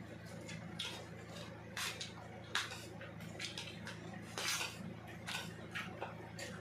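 Close-up eating sounds: a dozen or so short clicks and scrapes of cutlery on a dish, mixed with chewing of lato (sea grapes) and rice, over a low steady hum.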